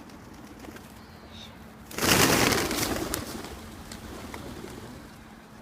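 Feral pigeons' wings flapping in a sudden rush about two seconds in, as a flock takes off or flutters down, fading over the next couple of seconds.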